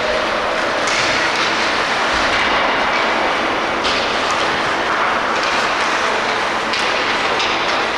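Youth ice hockey game in play: a steady hiss of skate blades on the ice, with several sharp clacks of sticks, puck and boards scattered through it.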